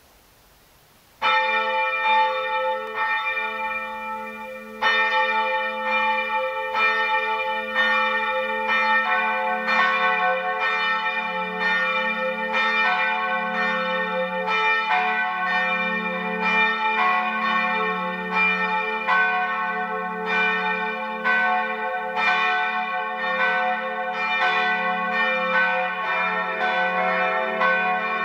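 Swinging church bells beginning to ring for Vespers, part of a five-bell peal tuned A, C♯, E, F♯, A. The first bell sounds suddenly about a second in. A second joins about five seconds in, and further bells join one after another, building into a full, overlapping peal.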